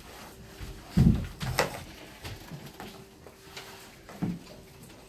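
A few dull knocks and thumps from puppet props being handled on a dark stage, the loudest about a second in and another near the end, with a faint steady hum in between.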